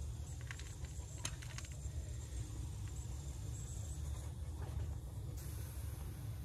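A few faint light clicks of small metal parts being handled at a brass flare fitting on copper refrigerant pipe, in the first two seconds, over a steady low background rumble.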